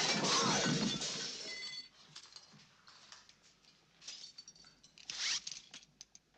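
Crockery and metal kitchenware crashing and clattering as a body is slammed onto a kitchen table, with metal ringing briefly. This drops after about two seconds to quieter scuffing and scraping, with a few short louder scrapes near the end.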